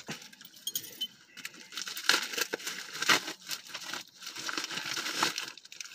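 Plastic wrapping crinkling and tearing as a package is pulled open by hand, in irregular rustles and crackles.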